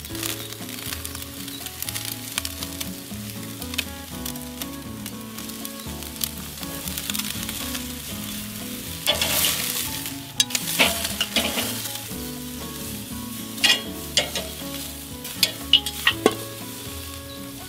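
Rib-eye steaks sizzling on a charcoal grill grate. About halfway through the sizzle swells louder as the steaks are turned onto the hot grate, followed by several sharp clicks of steel tongs against the grate.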